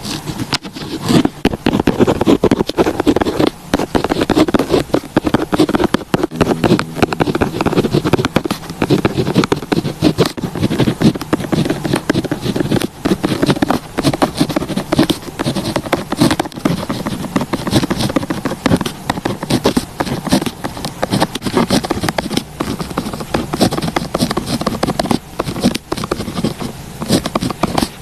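Pen writing on paper: a continuous run of close, scratchy strokes and small taps.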